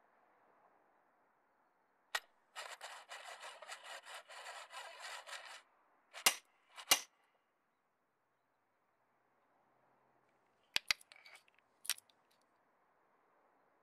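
Sound effects for a roof-bar foot being fastened to a raised roof rail. A single click is followed by about three seconds of rapid ratcheting as the foot's tightening knob is turned, then two sharp, loud clicks. Near the end come a few small clicks of a key turning in the foot's lock.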